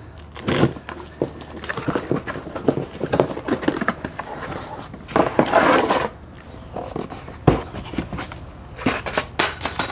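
Cardboard box being opened by hand: flaps pulled open and torn, with scraping and crackling cardboard, and a longer rustle about five seconds in.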